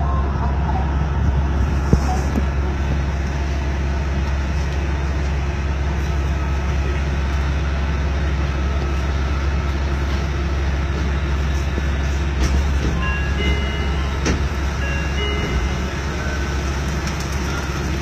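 Steady low rumble of Okinawa's Yui Rail monorail car running along its elevated track, heard from inside the car.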